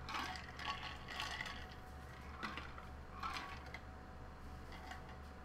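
A few short bursts of light clicking and rattling, over a steady low electrical hum.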